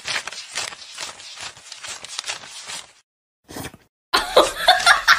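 Paper banknotes being flicked through and counted, a fast crisp rustle. About four seconds in, a small white terrier starts a quick string of short, pitched yips.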